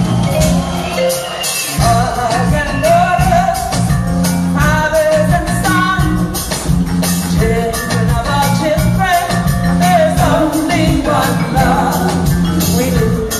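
Live band music played loud through a concert PA: a heavy bass and drum beat under a woman's sung vocal line. The bass drops out briefly about a second and a half in.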